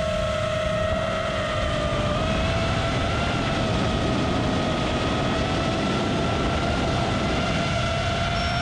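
FPV quadcopter's brushless motors and propellers whining steadily in flight, the pitch drifting slowly up and down with throttle, over a rushing noise underneath.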